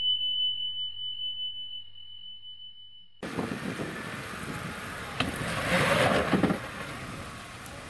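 A single bell-like ding rings and fades away over about three seconds. It cuts off suddenly into outdoor noise with wind on the microphone and a three-door Lada Niva's engine running, louder for about a second and a half past the middle, as the car hangs diagonally on the slope without locking differentials.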